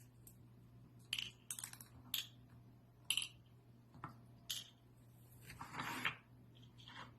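Faint, scattered clicks and light clinks of small hard objects, about a second apart, with a longer scraping rustle near the end, over a low steady hum.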